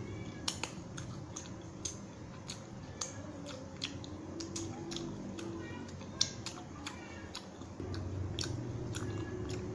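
Wet mouth clicks and smacks from someone licking food off her fingers and chewing, as short sharp clicks spaced about a second apart over a low steady background.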